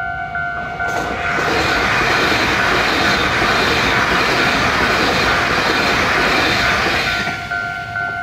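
Taiwan Railway EMU800 electric train passing at speed through a level crossing: a loud, even rush of wheels on rail and moving air builds about a second in, holds for some six seconds, then fades. The crossing's warning bell rings steadily at the start and again near the end.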